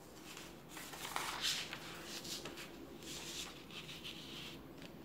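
A sheet of paper rustling and crinkling as it is handled and folded in half by hand, with quick scrapes as it slides and is creased; loudest a little over a second in.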